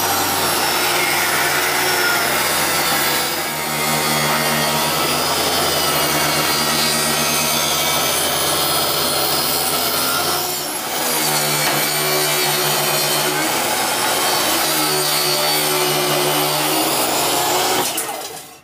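Maksiwa benchtop table saw ripping wooden boards into strips: the motor runs steadily under load while the blade cuts through the wood, easing briefly twice between passes. The saw winds down near the end.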